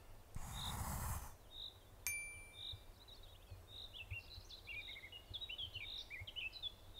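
Faint forest birdsong: one bird repeats a single high note about once a second, joined by a quick twittering song from about four seconds in. A brief rushing whoosh comes near the start and a short bright ding about two seconds in.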